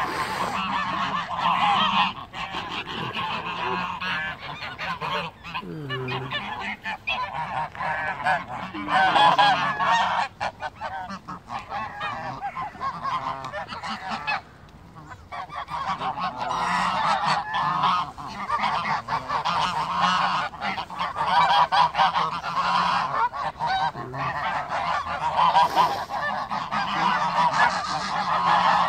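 A large mixed flock of Canada geese and domestic white geese honking continuously, many calls overlapping, crowding around someone feeding them. The calling briefly eases about halfway through, then picks up again.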